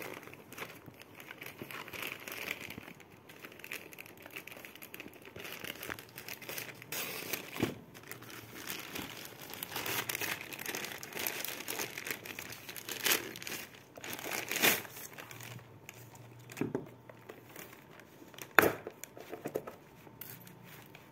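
A plastic courier mailer and the clear plastic bag inside it crinkling and rustling as they are opened and handled. Irregular crackles and sharper snaps come through, the loudest near the end.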